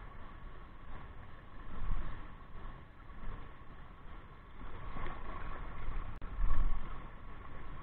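Gusts of wind buffeting the microphone in irregular low rumbles, loudest a little after the middle, over a steady motor-like hum.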